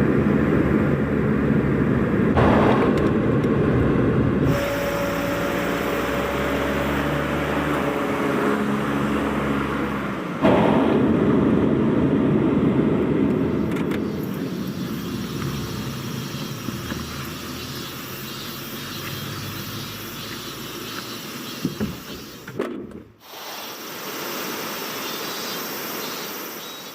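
Car engine and road noise heard while driving, the engine note shifting about 4 and 10 seconds in. About 23 seconds in it cuts to a steady hiss.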